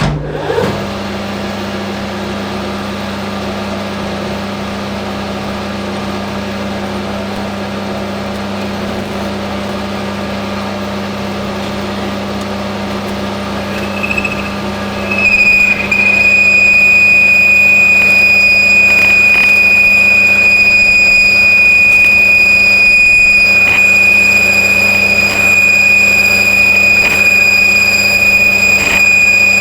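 Hafco AL960B metal lathe starting up and running with a steady hum. About halfway through, the cutting tool starts a loud, steady high-pitched squeal as it cuts, chatter that a heavier cut has not taken out.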